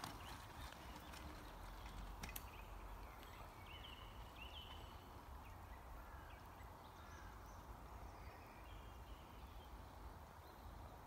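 Quiet forest ambience: a faint low rumble with scattered faint, short bird chirps through the middle.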